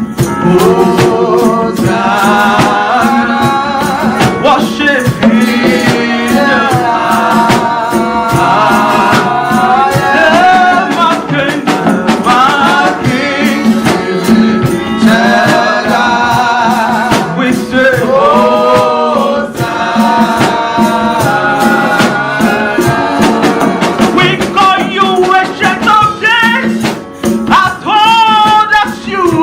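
Gospel worship music: voices singing a melody over a steady beat, with hand percussion rattling.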